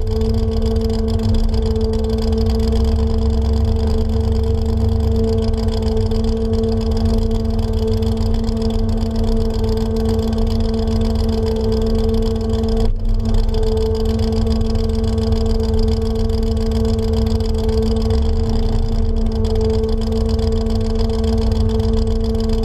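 Chevrolet S-10 pickup's engine running at a steady, unchanging pitch over a heavy low rumble, with a brief dip about halfway through.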